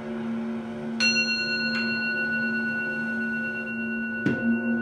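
Singing bowls ringing: a low bowl tone hums steadily, a small hand-held bowl is struck with a mallet about a second in and tapped again shortly after, adding high ringing tones, and near the end a deeper strike brings up the low tone, which then pulses.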